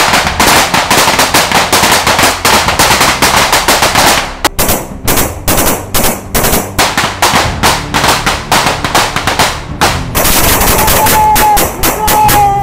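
Heavy automatic rifle fire from several weapons: a dense, continuous rattle of shots for about four seconds, a brief break, then looser bursts and single shots. Near the end a long held tone sounds over the firing.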